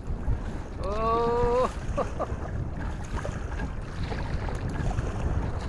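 Wind buffeting the microphone over choppy river water slapping around a kayak, a steady low rumble. About a second in, a brief held call with a slight rise in pitch stands out.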